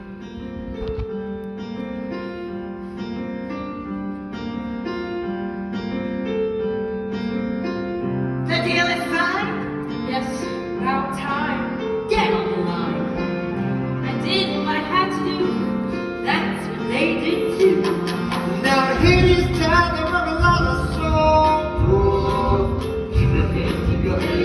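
Live stage-musical band music: soft held chords at first, growing fuller and brighter about a third of the way in, with a strong low beat coming in near the end and singing over it.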